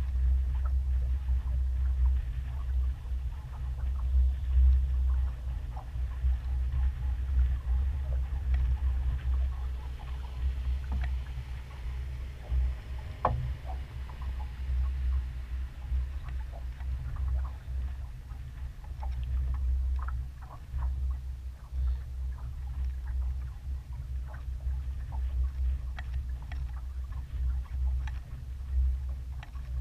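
Wind buffeting the microphone in a gusting low rumble, over the wash and small splashes of water along the hull of a sailboat under way.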